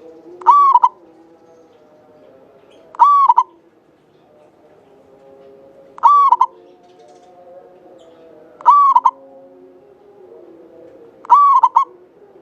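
Local Javanese zebra dove (perkutut) singing: five short, loud cooing phrases about two and a half seconds apart. Softer, lower calls run underneath.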